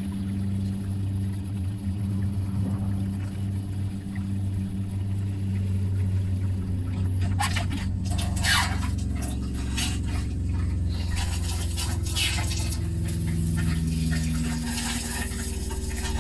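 RV water pump running with a steady hum while the hot water tap runs. About halfway through, the tap starts spitting and sputtering in irregular bursts as air is purged from the freshly filled water heater.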